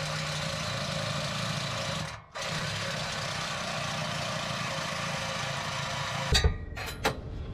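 Reciprocating saw cutting through the truck's metal exhaust pipe, running steadily with a brief pause about two seconds in. It stops about six seconds in, and a few knocks follow.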